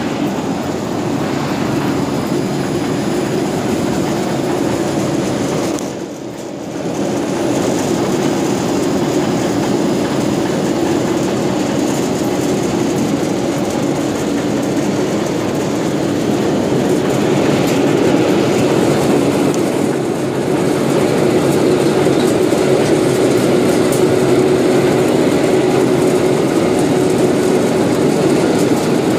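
Cotton ginning machinery running steadily, a loud continuous mechanical drone that dips briefly about six seconds in.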